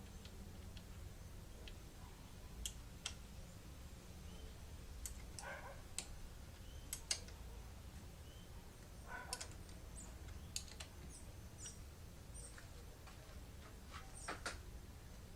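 Faint scattered clicks and light taps over a low background hum, with two short rustles about five and nine seconds in.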